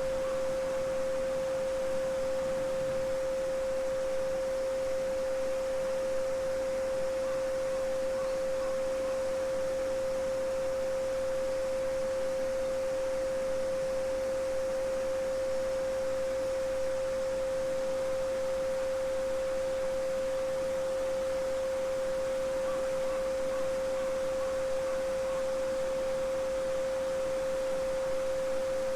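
A steady pure 528 Hz sine tone, the solfeggio frequency, held without a break over the even rush of a babbling brook.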